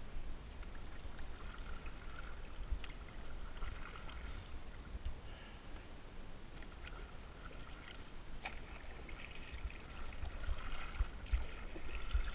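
Double-bladed kayak paddle dipping and swishing through river water with soft splashes and drips, over a low wind rumble on the microphone.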